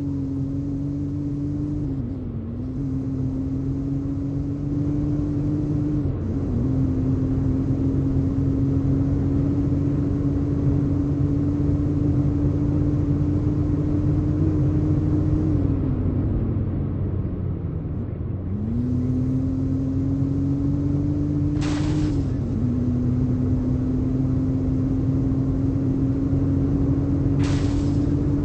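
Toyota vehicle driving, its engine and drivetrain giving a steady hum over a low rumble. The pitch dips briefly a few times, sinks slowly as it slows about halfway through, then climbs again as it speeds up. Two short bursts of hiss come near the end.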